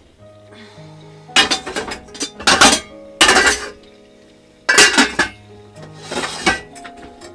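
Metal pots and pans clanking and clinking on a stovetop as they are lifted and set down, in several short bursts.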